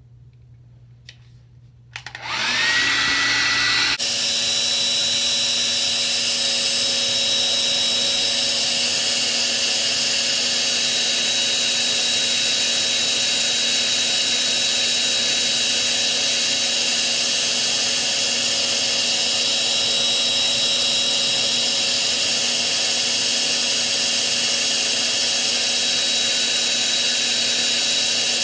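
Handheld hair dryer switched on about two seconds in, its motor whining up in pitch, then running steadily with a loud rush of air and a high whine.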